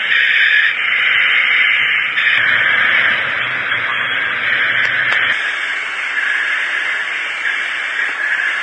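Steady rushing hiss of jet aircraft noise, thin and narrow in tone, with a low hum added from about two seconds in until about five seconds in.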